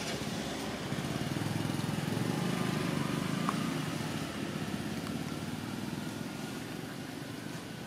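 Engine of a passing motor vehicle, a low rumble that grows louder over the first two seconds or so and then slowly fades.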